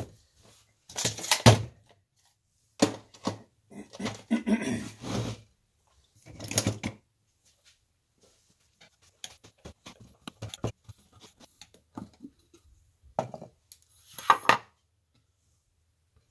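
Knocks, scrapes and clinks of a metal can of Bondo body filler being handled on a wooden workbench and its lid worked off. A loud knock comes about a second in, then a cluster of scrapes and clunks, a run of small clicks in the middle, and two more knocks near the end.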